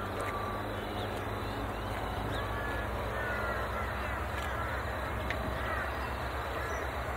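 Diesel locomotive engine running with a steady low throb, with birds calling in short chirps over it.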